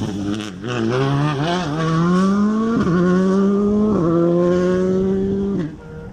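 Rally car's engine accelerating hard away, its pitch climbing through each gear with two upshifts about three and four seconds in, then cutting off sharply near the end.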